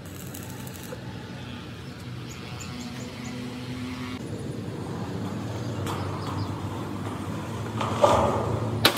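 A heavy vehicle's engine running steadily, growing louder from about halfway through. Near the end comes a loud, sharp noise.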